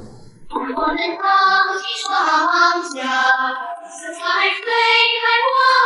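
A high-pitched, child-like voice singing a short melodic phrase of held, sliding notes.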